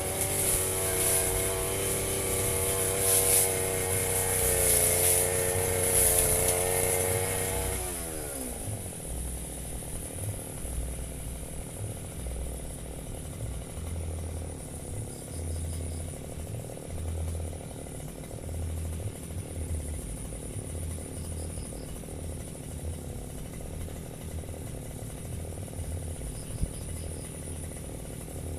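Firman FGB 528 two-stroke brush cutter engine running at speed, then about eight seconds in its pitch falls away sharply as the throttle is let off. After that only a low, uneven rumble is left.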